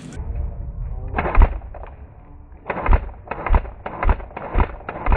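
Footsteps at a walking pace, about two a second, each a dull thud. They begin a little more than halfway in, after a single louder knock about a second in.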